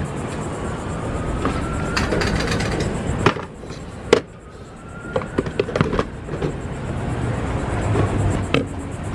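Clicks and clunks of a gas pump's fuel nozzle being pulled from a car's filler neck and hung back on the pump holder, the two loudest knocks about three and four seconds in. Near the end, a click as the fuel door is pushed shut.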